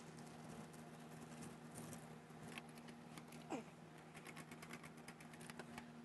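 Quiet handling sounds: light clicks and rustling as mink fur and fabric are moved about at an idle sewing machine, over a steady low hum. A short falling squeak about three and a half seconds in is the loudest moment.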